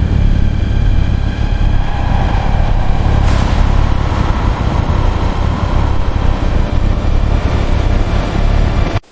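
Loud, steady low rumble with a sharp crack about three seconds in; it cuts off abruptly near the end.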